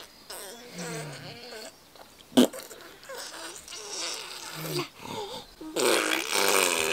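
Baby's excited squeals and babbling, growing louder near the end, with one sharp click about two and a half seconds in.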